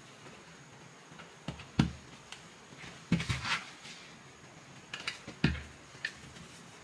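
A heavy dry iron being set down and pressed on a wooden tailor's pressing board, with a few separate dull knocks and some fabric rustling between them, as fusible interfacing is pressed onto fabric.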